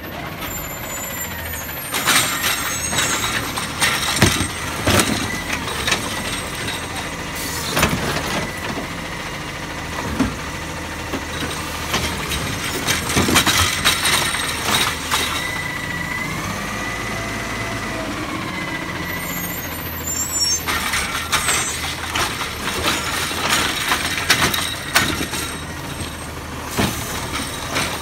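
Automated side-loader garbage truck running at the kerb while its hydraulic arm reaches out and grips a wheeled trash cart, with repeated clanks and knocks. A thin hydraulic whine runs through it and bends up and down a little past halfway.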